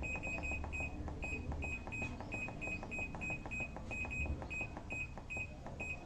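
Toshiba top-load washing machine's control-panel beeper giving a short, high beep with each press of the preset button: a rapid run of about twenty beeps, quickest in the first second. The presses step the delay timer hour by hour towards 24 to switch it off.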